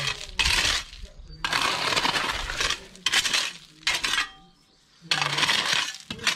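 Loose stone gravel crunching and clinking in several bursts of about a second each, with a quieter gap about two-thirds of the way through.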